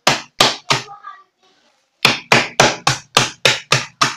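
Meat tenderizer mallet pounding a plastic food bag of ice cubes on a countertop, crushing the ice into small pieces. Three blows, a pause of about a second, then quick steady blows about four a second.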